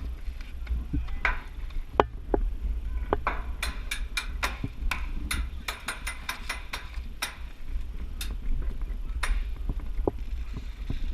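Airsoft guns firing a run of sharp, quick pops, about a dozen in three or four seconds, with a few more single pops after.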